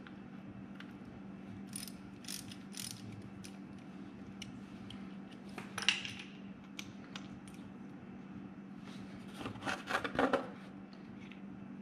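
Socket ratchet wrench clicking in short bursts as the drain plug of the mini excavator's track drive motor is backed out. The loudest run of clicks comes near the end.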